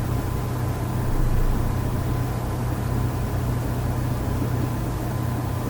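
Steady low hum with a hiss underneath: background noise picked up by the recording microphone, with no speech.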